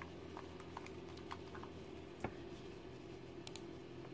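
Light, scattered clicks and taps of handling close to the microphone, the sharpest a little after two seconds in, over a faint steady hum.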